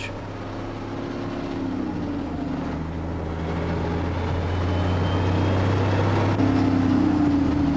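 Tandem-axle dump truck's engine pulling under load, heard inside the cab as the truck accelerates through the gears of its 10-speed transmission. The steady engine drone slowly grows louder, its note dipping about two seconds in and rising again near the end.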